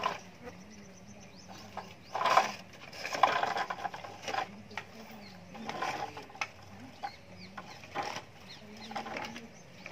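Plastic wheels of a pedal-driven ride-on toy tractor and its trailer rattling and clicking irregularly as they roll over a brick path.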